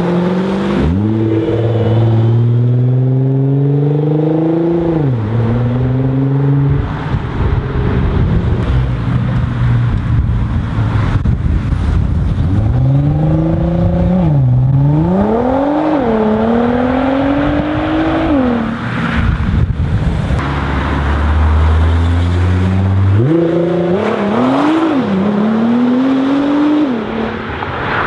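Nissan GT-R R35's 3.8-litre twin-turbo V6 accelerating hard three times, the revs climbing and dropping sharply at each upshift, with the engine idling between runs.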